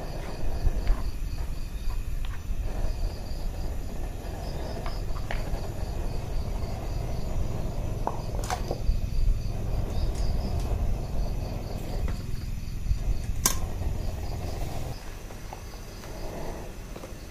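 Insects chirping in repeated trains of high, evenly spaced pulses, over a steady low rumble that drops away about fifteen seconds in. A few sharp clicks, one louder crack about three-quarters of the way through.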